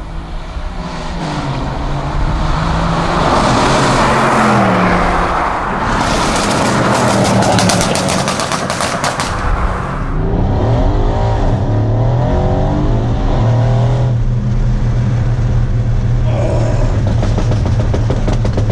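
Mercedes-AMG C63 S twin-turbo V8, fitted with downpipes, a tune and a Frequency Intelligent exhaust, accelerating hard with the revs rising and falling. After the revs drop it fires a rapid run of exhaust pops and crackles. From about ten seconds in it is heard from inside the cabin, revving up through the gears, then settling into a steady drone.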